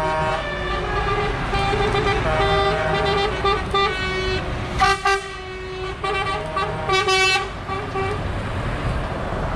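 Lorry air horns sounding in repeated held blasts, several overlapping at different pitches, over the low running of diesel truck engines. A brighter, higher horn blast comes about five seconds in and another about seven seconds in.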